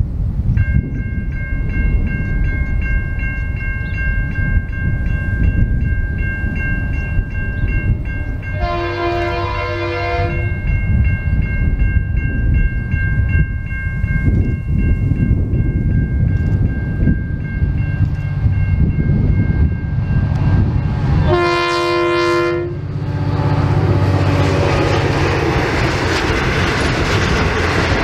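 N class diesel locomotive sounding its multi-tone horn twice: a two-second blast about 8 seconds in and a shorter one near 22 seconds, as it approaches hauling a passenger train. Level crossing warning bells ring with a steady high tone for most of the first 20 seconds. The engine rumble and wheel noise of the passing train rise in the last few seconds, over wind on the microphone.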